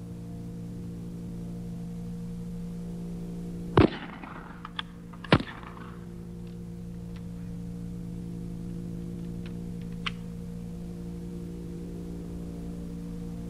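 Two rifle shots about a second and a half apart, the first about four seconds in, followed by a few fainter clicks, over a steady low electrical hum.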